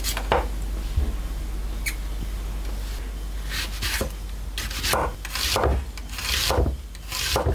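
Chef's knife slicing a raw onion into rings on a wooden cutting board. Each stroke gives a short crunching cut that ends on the board, about ten strokes in all, coming faster after the first few seconds.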